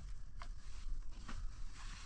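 A few short scrapes and rustles of stone on gravelly ground as a flat stone slab is shifted into place by hand.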